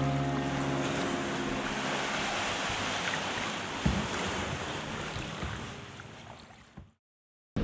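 Lake water washing and wind, a steady hiss with one short knock about four seconds in, fading out to silence near the end.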